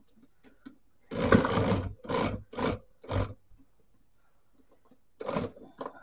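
Screwdriver prying at the metal mechanism of an electric typewriter, parts scraping and rattling in bursts: one long burst about a second in, three shorter ones after it, and two more near the end.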